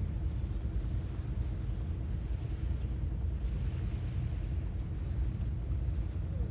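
Sea waves washing in, heard as a steady low rumble with no distinct breaks.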